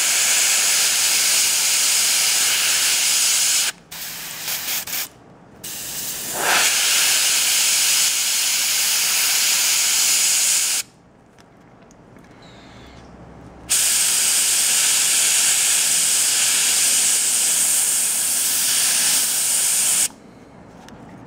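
Gravity-feed airbrush spraying paint, a steady hiss of air in long bursts. It cuts out briefly about four and five seconds in, stops for about three seconds around the middle, and cuts off again shortly before the end.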